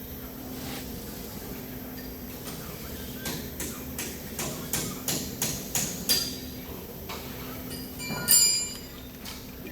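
Hand tools working on metal: a run of about eight sharp taps roughly three a second, then a louder metallic clink that rings briefly, like a tool or part set down on metal.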